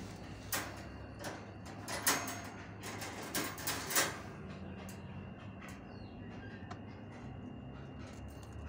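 A cat scratching and shifting about in a cat litter box inside a wire cage: a run of short scraping, rattling noises over the first four seconds or so, then only a low steady hum.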